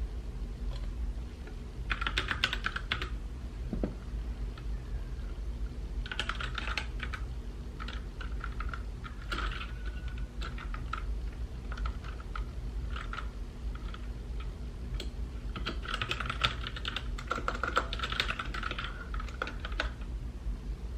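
Typing on a mechanical keyboard in bursts: a quick flurry of keystrokes about two seconds in, another around six seconds, scattered single keys after that, then a longer run of fast typing near the end. A steady low hum sits underneath.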